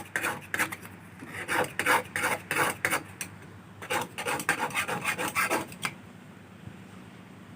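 Hand tool scraping back and forth on wood in a run of uneven rasping strokes, about two a second, stopping about six seconds in.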